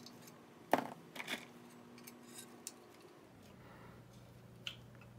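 Handling clicks and knocks of a monitor stand's metal parts being fitted together. The loudest is a sharp knock about a second in, followed by a smaller one, over a faint steady hum.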